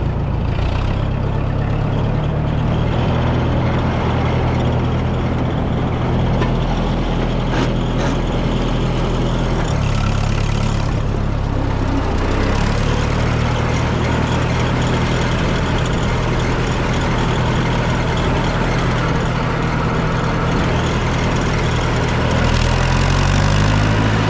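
Farm tractor engine running steadily while under way. Its pitch drops briefly about ten seconds in, then picks up again, and rises once more near the end.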